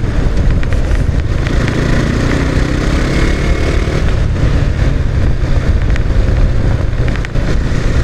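KTM 390 Duke's single-cylinder engine running under throttle as the bike speeds up from about 50 to 66 km/h, rising in pitch, then easing off. Wind noise rushes over the microphone throughout.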